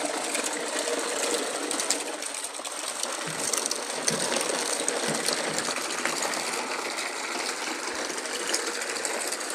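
Plastic toy cars, homemade plastic-bottle cars and a plastic toy truck, rolling over rough asphalt as they are towed in a line on a string. Their small plastic wheels make a steady rattling clatter full of little ticks.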